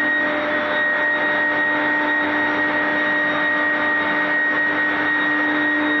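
Induction furnace plant running: a steady electrical hum and high-pitched whine made of several constant tones over a dense rushing noise.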